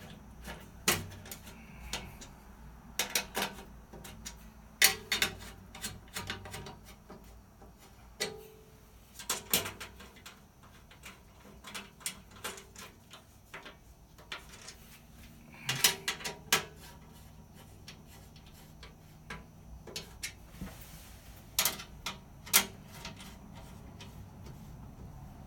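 Irregular metallic clanks, taps and knocks, a few sharp ones louder than the rest, as a trimmed sheet-metal cover plate for a transmission air scoop is shifted and test-fitted under the car.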